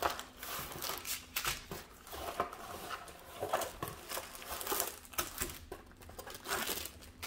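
Packaging rustling and crinkling as kit items are taken out of a cardboard box, in irregular handling noises with small sharp crackles and ticks.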